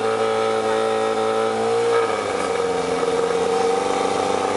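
Motorboat engine running steadily; its pitch drops a little about two seconds in, then holds.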